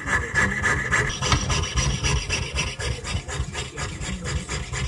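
A jeweler's saw blade cutting through a copper-nickel clad Susan B. Anthony dollar coin in rapid back-and-forth strokes, making a steady metallic rasping. The rasp grows brighter a little over a second in.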